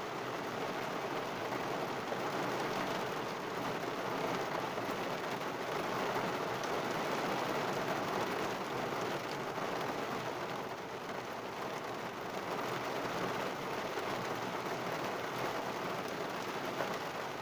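Heavy rain falling on a car's roof and windshield, heard from inside the car: a steady, dense patter of drops.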